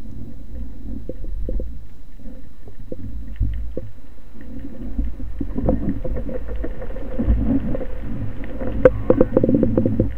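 Underwater noise picked up by a speargun-mounted camera: a steady low rumble of water movement with scattered clicks and knocks, growing denser about halfway through, as a speared brown meagre (corvina) and the spear shaft are handled.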